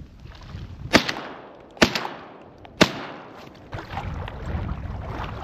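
Three shotgun shots, about a second apart, each with a short fading echo, followed by wind noise.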